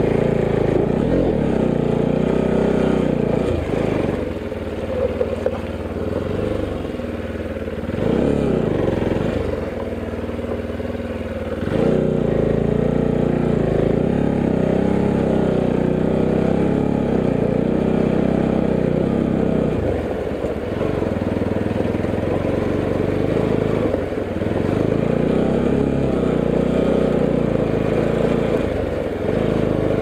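Motorcycle engine running as it is ridden over a rocky dirt track, its revs rising and falling with the throttle. The engine runs lower and quieter for a stretch from about four seconds in, then picks up again after about twelve seconds.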